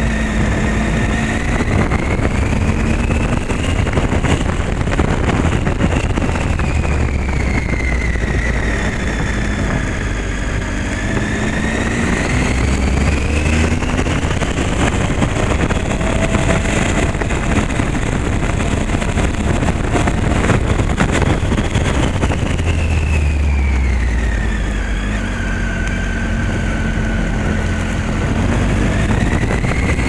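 Motorcycle engine under way on a cobbled mountain road, its pitch rising and falling slowly several times as the throttle is opened and closed through the bends, over a steady rush of road noise from the cobblestones.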